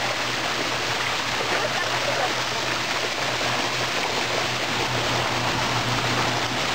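Water running steadily down a water slide, an even rushing splash with no breaks, over a faint steady low hum.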